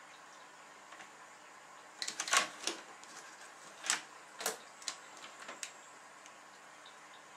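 Small objects and tools being handled on a work table: a quick run of light clicks and knocks about two seconds in, followed by four or five single knocks spaced about half a second apart.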